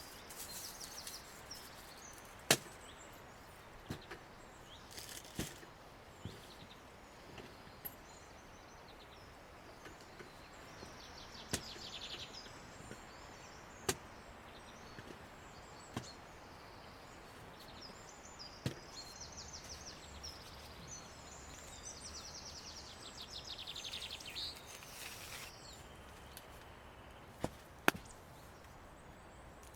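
Sharp single knocks, about eight spread irregularly a few seconds apart; the loudest come about two seconds in and near the end, where two fall close together. Between them, birds trill high in the background.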